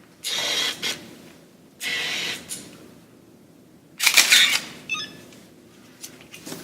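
Phase One DF Plus medium-format camera firing its shutter three times, each a mechanical clatter of about half a second, the third the loudest. It is the sign that the replacement shutter now works.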